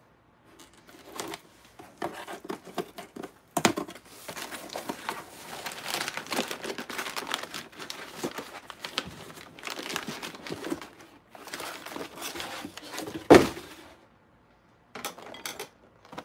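Crinkling and tearing of packaging as a sealed product box is opened, with one sharp, louder rip near the end.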